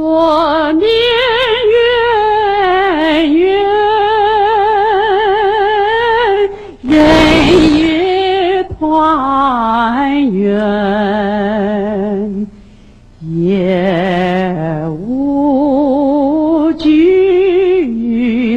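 A woman singing a slow Chinese song, long notes held with a strong vibrato, in phrases with short breaks between them. A brief noisy swish cuts across the singing about seven seconds in.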